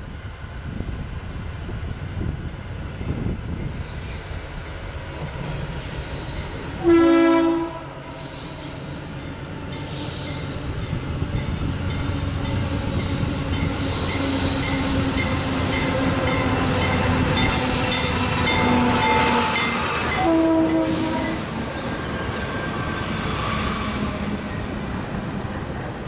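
A Norfolk Southern intermodal freight train approaching and passing. There are two blasts of the locomotive's horn: a short loud one about seven seconds in and a shorter one about twenty seconds in. Under them the rumble of diesel engines and wheels grows louder as the train nears.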